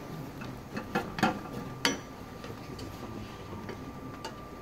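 A wooden spatula stirring béchamel sauce in a stainless-steel saucepan, knocking against the pan a few times, the sharpest knock about two seconds in, with lighter ticks later. A faint steady high hum runs underneath.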